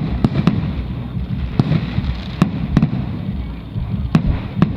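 Aerial fireworks going off: about eight sharp bangs at irregular intervals, over a steady low rumble from the ongoing barrage.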